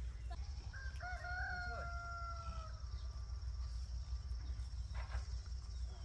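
A rooster crowing once: one long, drawn-out call starting about a second in and lasting about two seconds, over a steady low rumble and a faint, steady high whine.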